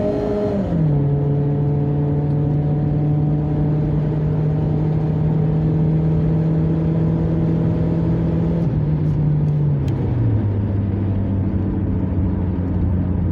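Kia Sportage (second generation) engine running through an open sport exhaust cutout at steady revs, its note dropping in pitch about half a second in and stepping down twice more around nine and ten seconds in.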